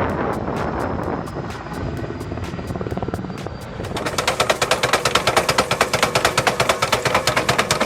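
Helicopter rotor beating in steady, even pulses. About four seconds in, the sound cuts to a louder, faster mechanical rattle from heavy machinery.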